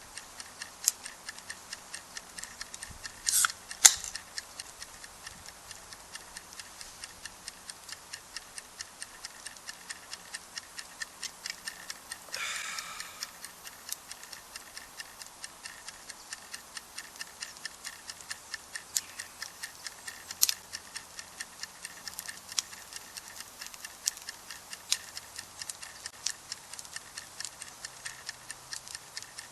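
Wood campfire crackling: a steady run of small sharp pops, with a few louder snaps about three to four seconds in and again near twenty seconds, and a brief hiss around twelve seconds in.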